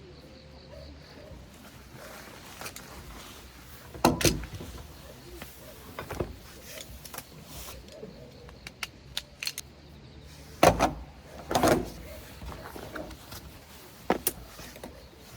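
Irregular clicks, clinks and knocks of objects being handled, with a few sharp, loud thumps: one about four seconds in, two close together around eleven seconds, and one near the end.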